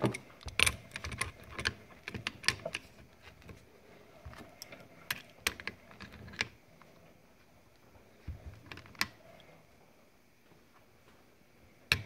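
Scattered light clicks and taps, busiest in the first few seconds, from hand-threading a Teflon-taped steel V-style male quick-connect fitting into the air inlet of an Ingersoll Rand 2235TiMAX impact wrench.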